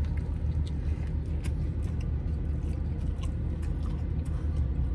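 A man bites into and chews a soft, jus-soaked Italian beef sandwich, giving small wet mouth clicks over a steady low hum in the car cabin.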